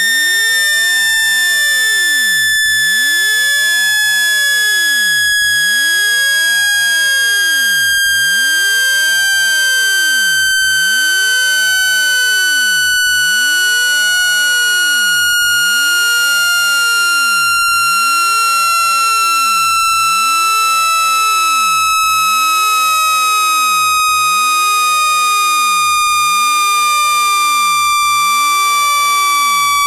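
Loud, steady electronic tone gliding slowly and evenly down in pitch, with overtones above it: a speaker-cleaning sweep tone meant to vibrate water and dust out of a phone speaker.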